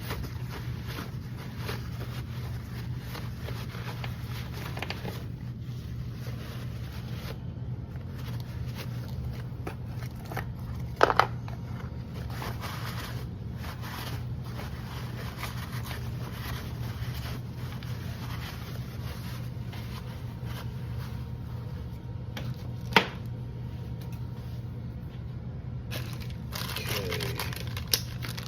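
Parts and packaging being handled on a bench: scattered light scrapes and crinkles, with two sharp clicks, one about a third of the way in and one about two-thirds in, over a steady low hum.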